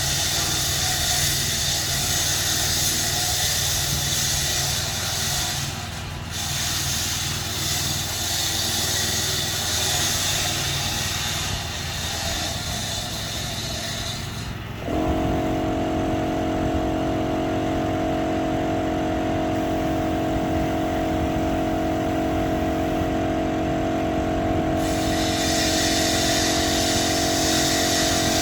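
Machinery running steadily with a loud hiss. The hiss stops about halfway through and starts again near the end. About halfway through, a steady hum of several tones sets in abruptly and keeps going.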